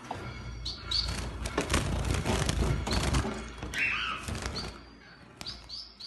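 Small cage finches giving short high cheeps at intervals, with one hoarser call near the four-second mark. Through the middle seconds, a loud stretch of rustling and knocks with a low rumble.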